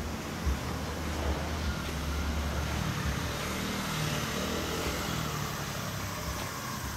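Steady low rumble of vehicle noise, uneven in the lowest range, with no clear engine note standing out.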